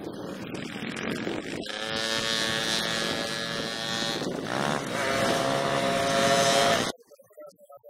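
Small motocross bike engine revving as it pulls away, its pitch rising and falling with the throttle, then cut off suddenly near the end.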